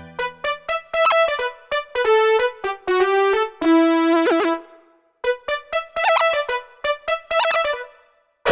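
Roland D-20 LA synthesizer playing a bright keyboard patch: a quick phrase of short notes with a brief pitch wobble about four seconds in. It stops for a moment about five seconds in, then another run of short notes follows.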